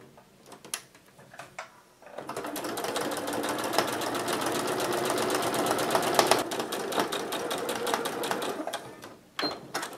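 Janome sewing machine stitching a straight seam through layered fabric. It starts about two seconds in, runs steadily at speed with a fast, even needle rhythm, and stops near the end.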